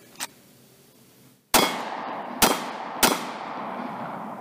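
Three shots from a Sig P365 pistol: the first about a second and a half in, then two more in quicker succession. Each shot is followed by a long echo that dies away slowly.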